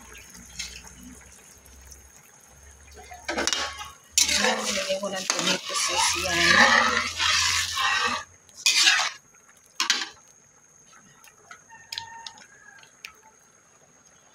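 Metal spatula stirring and scraping through sauce in a metal wok, clinking against the pan. The stirring is loudest from about four to eight seconds in, followed by two short scrapes around nine and ten seconds and a few faint taps.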